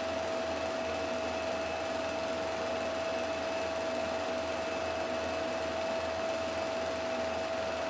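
Film projector running steadily: motor and cooling fan whirring, with a constant high-pitched whine.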